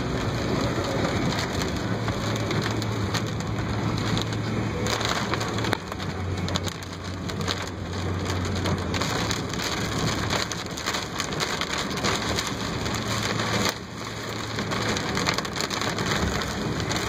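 Heavy rain falling on a moving car's windshield and roof, with the hiss of tyres on the wet road, heard from inside the cabin over a steady low hum from the car.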